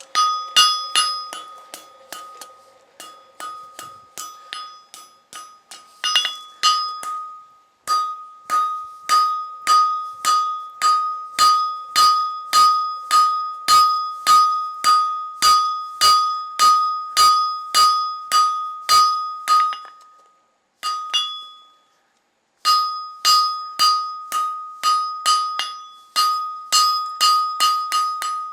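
Hand hammer striking hot iron on an anvil, about two blows a second, the anvil ringing out with each strike: forging the flat pad of a holdfast. The hammering stops briefly about a quarter of the way in, and again for two seconds about three-quarters through.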